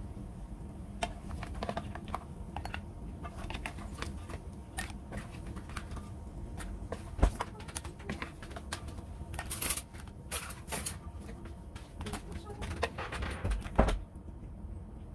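Cooked crab shells clattering against a nonstick frying pan and a glass bowl, with a wooden spatula scraping the pan, as the crabs are lifted from pan to bowl. Irregular clicks and knocks, with a louder knock about seven seconds in and another near the end.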